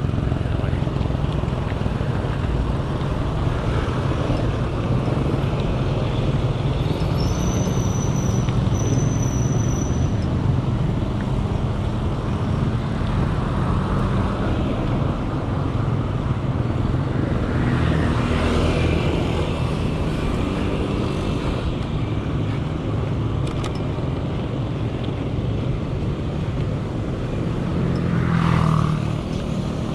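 Road traffic heard while riding a bicycle on a city street: a steady low wind rumble on the microphone, with vehicles passing now and then, the loudest near the end.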